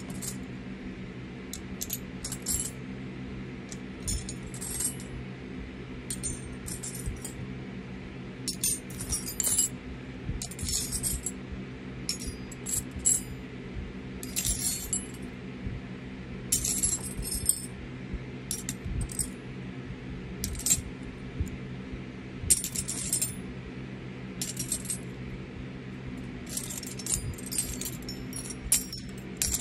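Fidget spinners and their plastic packaging being handled: short, irregular bursts of crinkling and light clinking over a steady low hum.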